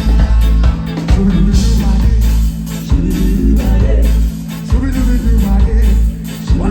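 Live reggae band playing, with heavy bass and guitar, and a voice singing over it.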